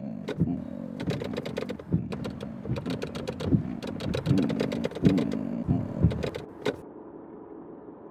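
Car radio being flipped through stations: short snatches of sound broken up by rapid clicks, until it cuts off suddenly near the end, leaving a low steady hum.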